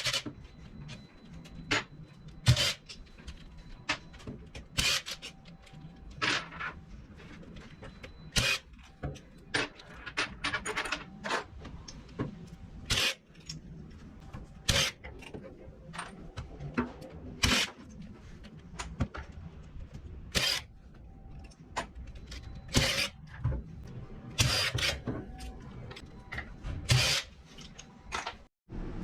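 Irregular metallic clicks, clinks and knocks of hand tools and engine parts being handled and set down on a workbench during engine disassembly.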